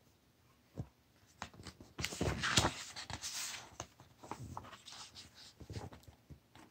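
Pages of a hardcover picture book being turned by hand: a small click, then several seconds of paper rustling, loudest about two to three and a half seconds in.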